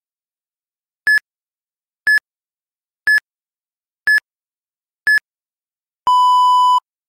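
Interval-timer countdown: five short, high electronic beeps one second apart, then one longer, lower beep marking the change to the next interval.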